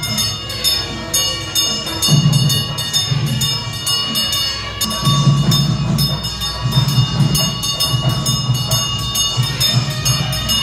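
Temple bells ringing continuously in rapid clanging strikes for the arati lamp offering, with a low drum-like rumble rising and falling underneath.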